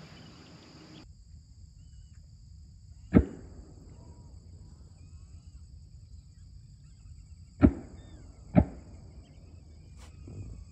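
Shotgun fired three times: one shot, then about four and a half seconds later two more shots about a second apart.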